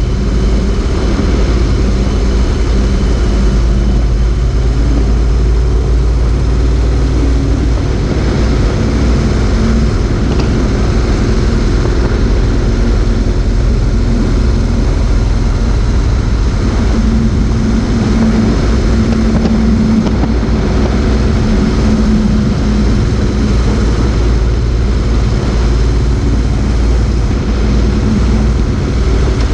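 Motorcycle riding at speed: the engine runs steadily with its pitch wavering slightly, under heavy wind rush and tyre noise on a camera mounted low by the front fork.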